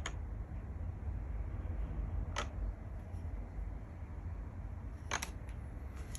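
A few isolated key clicks from an HHKB Professional JP keyboard's Topre switches over a steady low room rumble. There is one click about two and a half seconds in and another around five seconds in.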